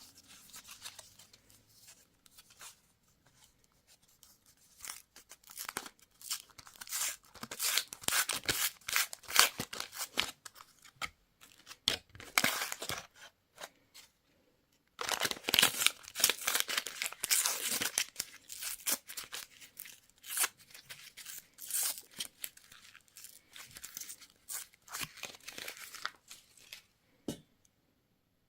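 Candy wrappers being crinkled and torn open by hand in irregular crackling bursts, with a short pause about halfway through.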